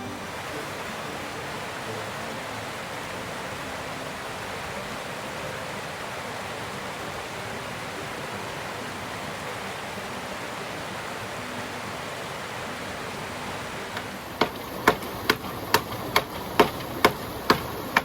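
Steady rush of a flowing stream, joined near the end by a run of sharp knocks, about two a second, like striking with a hammer or axe.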